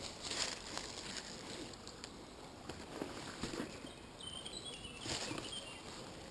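Small stream running over rocks in a shallow riffle, with rustling and short handling knocks close to the microphone. Faint high chirps come through about two thirds of the way in.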